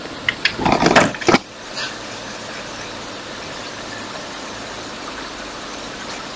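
Steady fan noise from the workbench, with a brief clatter of handling, a few clicks and a rattle, about half a second to a second and a half in.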